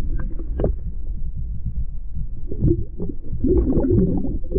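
Water sloshing and bubbling heard through a submerged camera, muffled and low, with scattered knocks, as a hand moves a brook trout underwater and lets it go.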